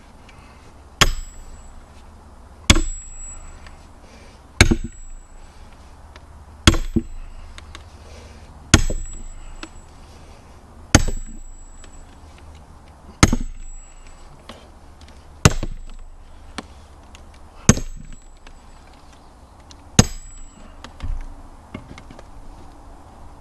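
Sledgehammer driving a steel splitting wedge into a log round: ten hard strikes about two seconds apart, each with a short high ring, then a softer knock near the end.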